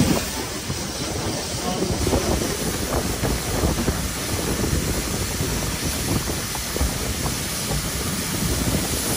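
LSWR T3 class 4-4-0 steam locomotive No. 563 working a train away from the station, heard from its footplate: steady steam hiss and exhaust over a low rumble of the engine and wheels on the track.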